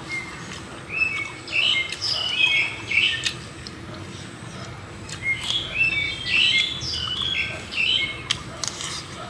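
A bird singing: two bouts of quick, high chirping phrases, the first starting about a second in and the second around five seconds in, each lasting about three seconds.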